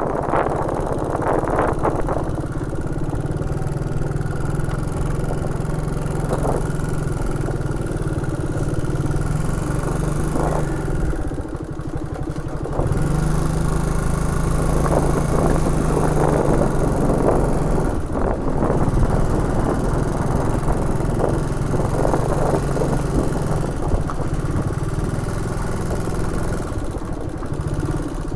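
Motorbike engine running steadily on the move, with road and wind noise. It eases off briefly about twelve seconds in, then picks up again.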